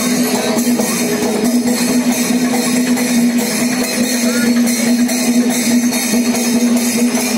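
Loud percussion music at a Kerala temple festival: drums and cymbals struck in a fast, dense rhythm over a steady low held note.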